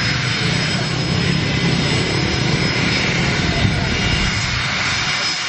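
Twin rear-mounted jet engines of a Gulfstream business jet running at taxi power: a steady rush with a thin, high whine over it.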